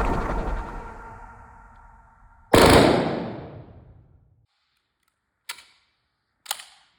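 A single gunshot fired indoors, a sharp crack about two and a half seconds in that rings out in the room's reverberation for about a second and a half. Two faint clicks follow a second apart near the end. Before the shot, a fading ring of steady tones dies away.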